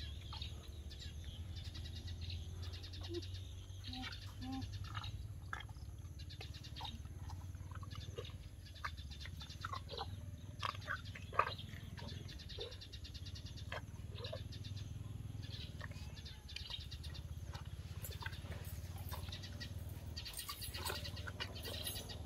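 Small birds chirping on and off over a steady low hum, with one short sharp knock about eleven seconds in.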